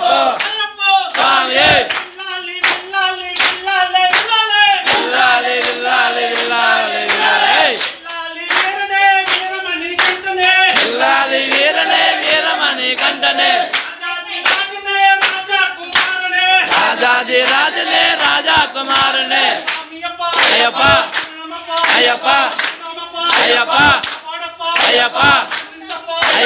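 A group of men singing an Ayyappa devotional chant together, with hand-clapping about twice a second. Around five to eight seconds in they hold a long note and the clapping thins out.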